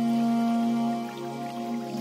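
Slow, calm new-age background music of long held chords, which soften about a second in.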